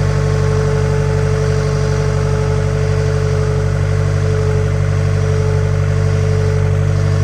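Skid steer engine running at a steady speed, with a steady whine over its low hum.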